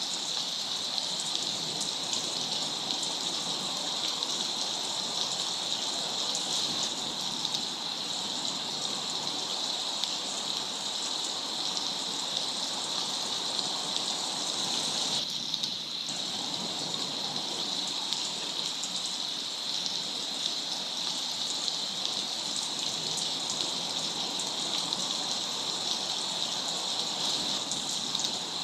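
Steady rushing water noise, with a constant high-pitched band running over it; the sound briefly thins a little past halfway, then carries on unchanged.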